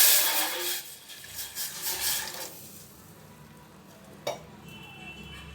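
Water being poured into a cooking pot on a lit stove. The splashing is loud at first, then tapers off in uneven bursts and stops after about two and a half seconds. A single sharp knock follows near the end.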